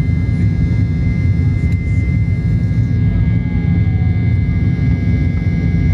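Inside the cabin of a turbofan jet airliner climbing after takeoff: a loud, steady engine rumble with a steady high whine over it.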